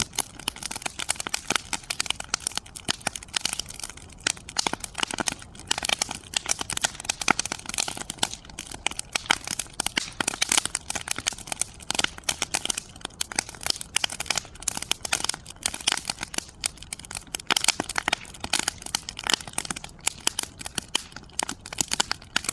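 Wood fire in a fire pit crackling, with dense, irregular snaps and pops over a steady hiss.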